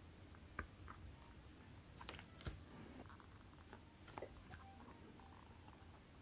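A few faint, sharp clicks of steel tweezers and small metal parts against a watch movement as the chronograph works are handled and fitted, over a low steady hum.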